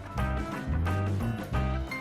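Background music with a steady beat, bass and plucked guitar-like notes in a swing style.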